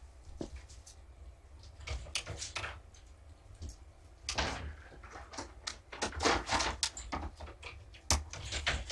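Clattering as hard objects are handled: scattered sharp clicks and knocks, starting about two seconds in and coming thick and fast through the last few seconds.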